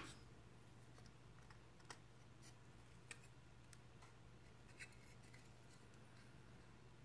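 Near silence, with a few faint, sparse clicks and taps of circuit boards being handled as a prototyping shield is fitted onto a Raspberry Pi, over a low steady hum.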